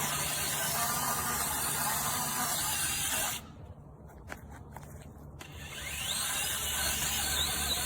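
Small battery-powered mini chainsaw running, with the chain's hissing cut noise; it drops off a little after three seconds in, leaving a few clicks, then spins back up with a rising whine about six seconds in.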